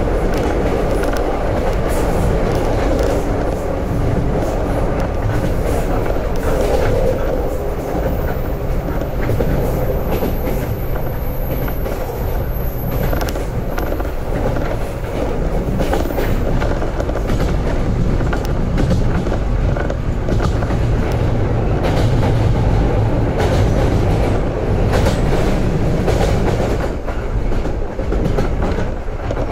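JR 415 series electric train running, heard from inside the car: a steady rumble of wheels on track, with scattered rail-joint clicks.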